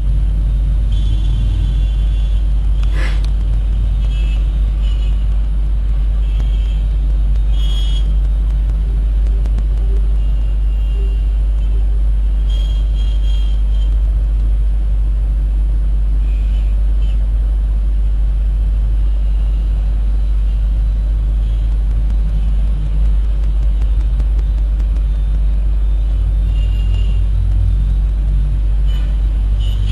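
Busy street traffic of motorbikes, auto-rickshaws, cars and a bus: a steady, loud low rumble, with brief high tones here and there.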